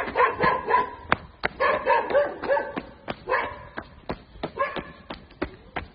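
A dog barking in quick runs of short barks, three or four at a time, over steady footsteps at about three a second.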